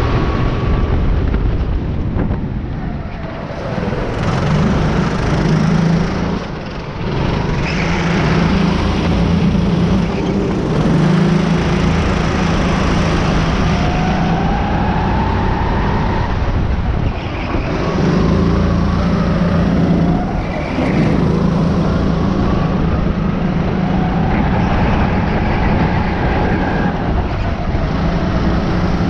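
Rental race kart engine running hard, heard from a camera mounted on the kart. The engine note dips briefly several times as the revs fall, then climbs again.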